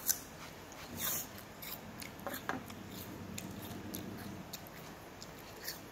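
Chewing a bite of crisp pear: irregular crisp crunches and small clicks, with a couple of louder crunches about one and two and a half seconds in.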